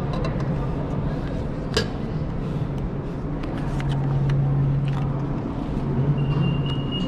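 Metro station hall ambience: a steady low hum that swells in the middle, footsteps clicking on the tiled floor, and a brief high beep near the end.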